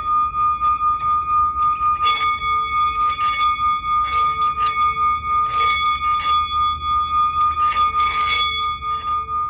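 Singing bowl ringing with a steady high tone and overtones that pulse quickly in loudness, about three times a second. A second, lower tone joins about two seconds in.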